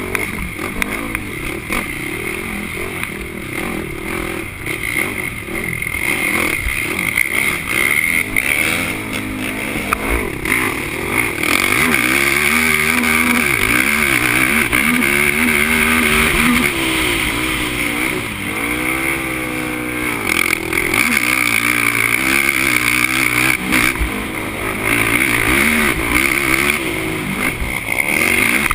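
Racing quad (ATV) engine heard from the rider's own machine, revving up and down as it accelerates and backs off along a rough dirt trail. It gets louder about twelve seconds in and stays hard on the throttle.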